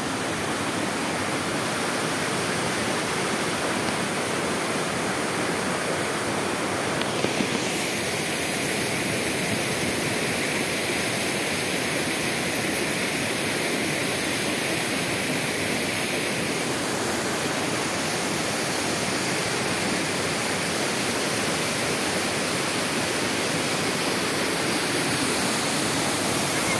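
Steady rushing of water pouring over a small waterfall into a river. It sounds slightly brighter for about ten seconds in the middle.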